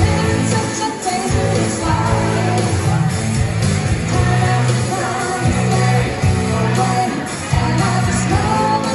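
Live rock band playing a pop-rock song, electric guitar and keyboards over bass and drums, with a voice singing.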